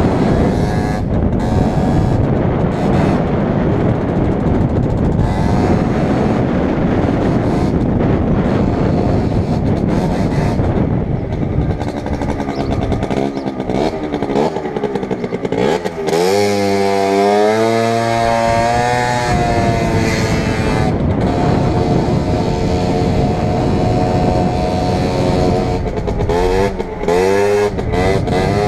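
Motorcycle engine running under way, heard from the rider's helmet with a steady rush of noise. About halfway through, the engine pitch sweeps up and back down as the revs climb and fall, and it rises and falls again near the end.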